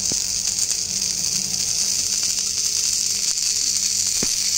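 Onion dosa sizzling in oil on a hot tawa: a steady high hiss, with a faint low hum beneath and a faint tick about four seconds in.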